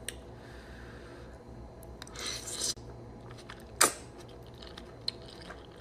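Close-up eating sounds: chewing and mouth noises, with a short noisy burst about two seconds in and a single sharp click near four seconds.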